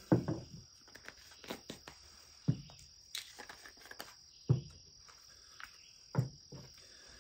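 A steady chorus of crickets or other insects, with scattered knocks and clicks as small plastic spice containers are handled: caps snapped on and off and jars set down on a wooden table. The sharpest knocks come about two and a half, four and a half and six seconds in.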